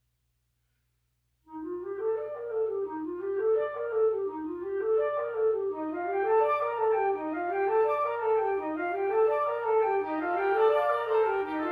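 Wind quintet playing, starting about a second and a half in. A low line climbs and falls over and over in a steady pattern, with quick flute and clarinet figures layered above it.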